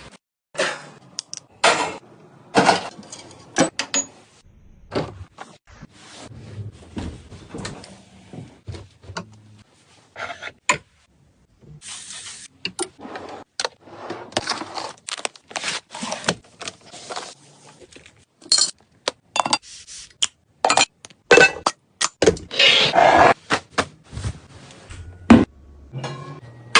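Irregular clattering, clicks and scrapes of hard household objects being handled during cleaning, with a few longer rushing noises about 12 and 23 seconds in.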